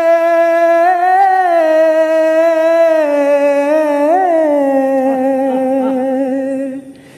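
A male singer holds one long sung note with small ornamental bends and no accompaniment. The note sags slightly in pitch and breaks off shortly before the end.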